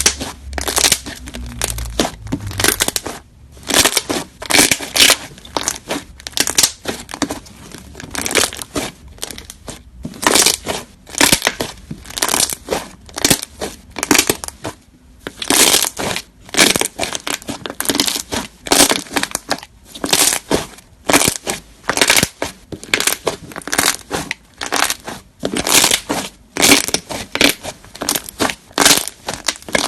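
Hands squishing, poking and stretching fluffy slime: irregular crackling squishes, about one or two a second.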